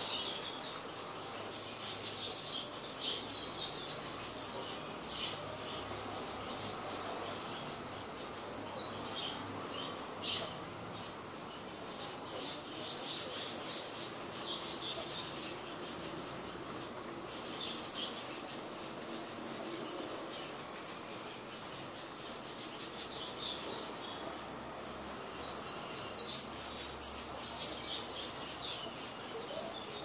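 Purple sunbirds chirping: runs of high, thin, quickly repeated chirps, with a louder fast run near the end.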